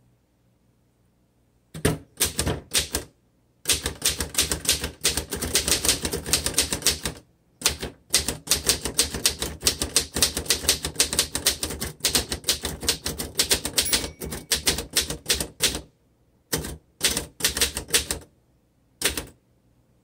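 1924 Royal 10 manual upright typewriter being typed on: fast runs of key strokes, each a sharp clack of the typebar striking the platen. Two long runs with a short pause between, then a few scattered strokes near the end.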